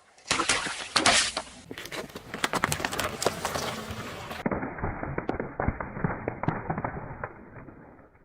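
Objects crackling and crunching as they are crushed under a car's tyres, a rapid run of sharp snaps and cracks across several cut-together takes.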